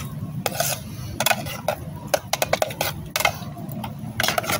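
Spoon scraping and clinking against a metal pot as onion and bell pepper are stirred while they sauté, in irregular strokes about every half second, over a steady low background rumble.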